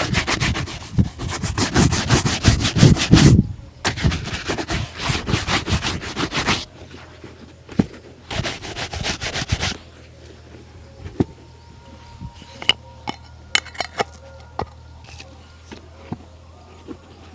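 Shoe brush scrubbing across a shoe in quick back-and-forth strokes, in three bursts, followed by scattered light taps and clicks.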